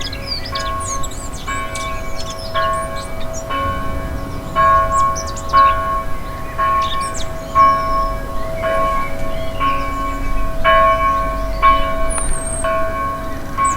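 A church bell tolling steadily, one even strike about every second, each ringing on into the next. Songbirds chirp and twitter throughout.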